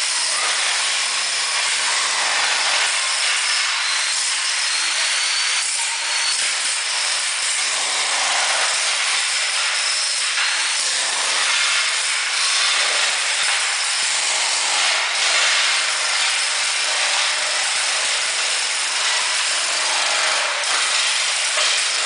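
Trolley-mounted electric jackhammer chiselling up ceramic floor tiles: a continuous fast hammering rattle, with a few sharp cracks as tiles break loose.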